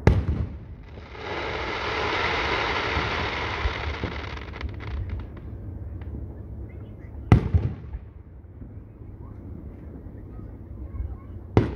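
Aerial firework shells bursting: three sharp bangs, one right at the start, one about seven seconds in and one near the end. A loud hiss follows the first bang for about three seconds, with a few crackles as it dies away.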